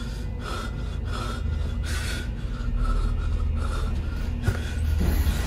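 A person's short, heavy breaths or gasps close to the microphone, one or two a second, over a steady low rumble that grows louder about halfway through.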